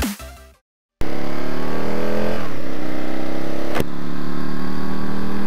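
Aprilia Tuono motorcycle engine on the move, starting about a second in: the revs rise for about a second, then drop and hold steady. A brief sharp click comes near the middle.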